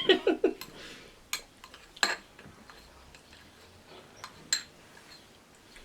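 A few separate sharp clinks of an eating utensil against a dish, loudest about one and a half, two and four and a half seconds in, with lighter taps between.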